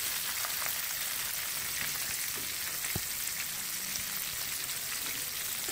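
Flour-coated chicken pieces deep-frying in hot oil, sizzling steadily, with one light knock about three seconds in.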